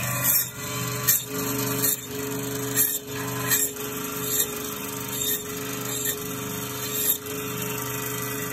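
Meat band saw running with a steady motor hum, with a short rasp about once a second as pieces of lamb shoulder are pushed through the blade.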